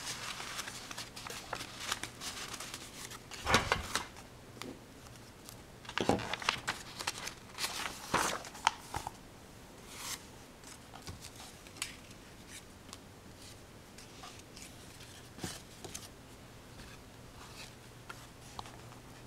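Irregular small clicks and rustling, like objects being handled, busiest in the first half with a few louder knocks, then thinning to scattered ticks, over a faint steady low hum.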